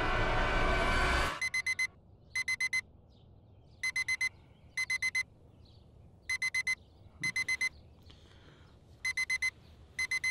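Digital alarm clock beeping in quick groups of four high, steady beeps, eight groups in all: the morning wake-up alarm. It starts just after a loud rising swell of sound cuts off abruptly about a second in.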